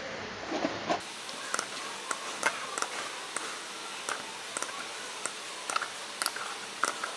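Computer mouse clicking: short, sharp clicks at an irregular pace of about two a second over a steady hiss. These are the clicks of placing selection points one by one.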